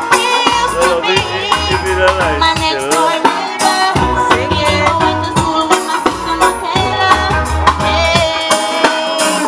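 Karaoke: a backing track with a steady beat and bass playing over a sound system, with a woman singing over it into a microphone.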